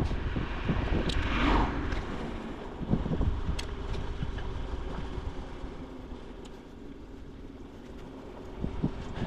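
Wind buffeting an action camera's microphone while riding a bicycle, over a steady low rumble of tyres rolling and scattered small clicks and rattles. A louder rushing swell about a second and a half in.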